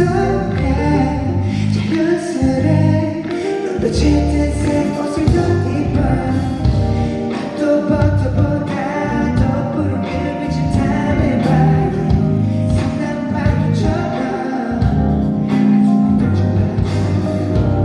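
A live concert performance of a pop song: a singer's voice over a band with a steady bass line.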